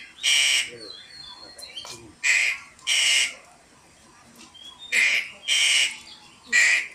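Crow cawing: about six loud, harsh caws, mostly in pairs, each roughly half a second long.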